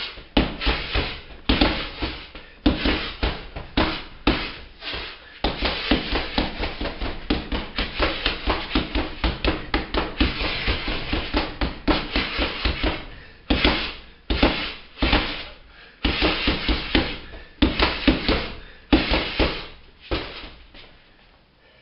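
Punches landing on a large hanging strike shield in boxing combinations: quick bursts of hits with short pauses, a fast unbroken flurry from about six seconds in to about thirteen, then shorter bursts until the punching stops near the end.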